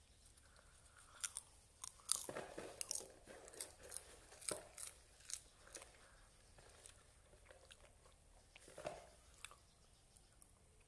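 Popcorn being chewed with the mouth close to the microphone: a run of crisp crunches for several seconds, then a few scattered ones.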